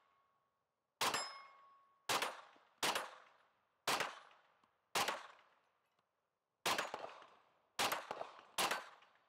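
Smith & Wesson FPC pistol-caliber carbine firing eight single shots at an uneven pace of about one a second, each shot with a short echo. Some shots are followed by the brief ping of a steel plate target being hit.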